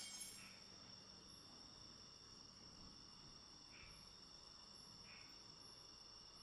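Faint, steady chirring of crickets, several thin high tones held without a break.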